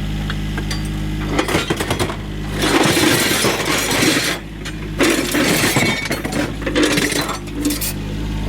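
Load of scrap metal sliding and crashing out as it is dumped, a jumble of clanks and crashes that starts about a second and a half in and comes in several surges, over an engine running steadily.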